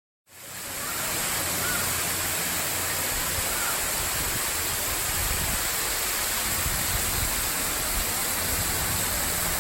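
Steady rush of a waterfall's falling water, fading in over the first second after silence.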